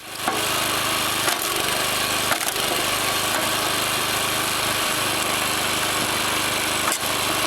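An engine-driven wood-processing machine running steadily under load, with sharp cracks of wood splitting or splintering a few times.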